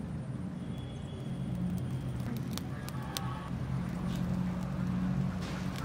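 A low, steady engine hum that grows a little louder after the middle, with a few sharp clicks about two and a half to three seconds in.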